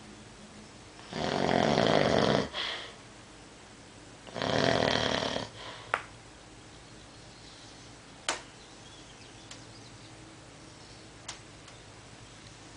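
Two loud snores, each lasting about a second and a half and about three seconds apart. After them come a few short sharp clicks over quiet room tone.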